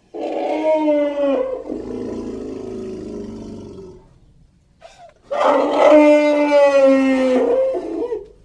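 Two elephant-like trumpeting calls used as a prehistoric gomphotherium's voice. The first is shorter and trails off into a lower rumble; the second, about five seconds in, is longer and louder, with its pitch sliding slightly down.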